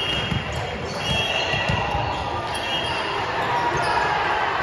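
Indoor volleyball court sounds: sneakers squeaking briefly on the gym floor three times, with dull thuds of the ball and feet.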